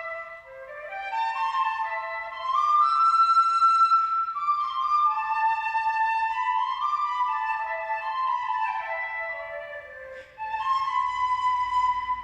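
Instrumental music: a flowing, flute-like melody in a high register, one phrase running into the next, with a short break about ten seconds in before a new phrase begins.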